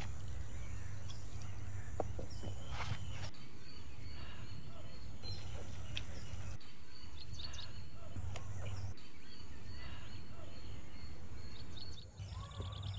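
Steady outdoor background noise with a low hum, and faint, scattered bird chirps.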